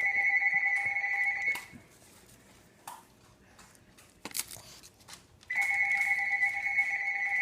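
Telephone ringing twice, with an electronic ring in two steady tones; each ring lasts about two seconds and they come about four seconds apart. A few short clicks fall between the rings.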